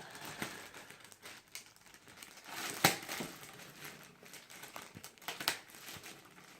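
Packaging crinkling and rustling as it is handled and pulled off a new humidifier during unboxing. Scattered sharp crackles run through it, the loudest about three seconds in.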